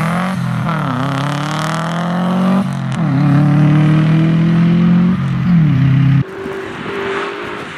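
Subaru Impreza rally car's turbocharged flat-four engine revving hard as the car accelerates away, the pitch climbing and then dropping at a couple of gear changes. About six seconds in the sound cuts off suddenly, leaving a quieter, steady engine note.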